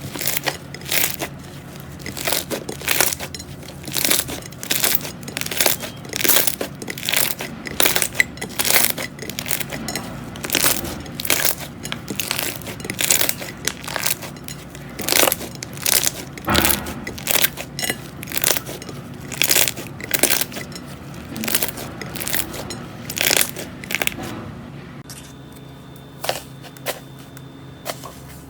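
Slime being squeezed and pressed by hand, giving a rhythmic run of crackling, squishing pops about one and a half to two a second. The pops thin out to a few soft clicks near the end.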